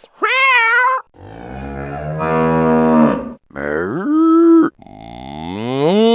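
Cattle mooing: three long, low moos, each rising in pitch, the last one held past the end. They follow a short higher call near the start.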